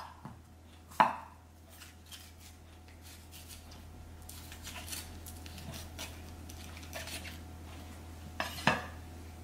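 Santoku chef's knife dicing a green bell pepper on a wooden cutting board: a run of light chops of the blade through the pepper onto the board, a few a second, with louder knocks near the start and near the end.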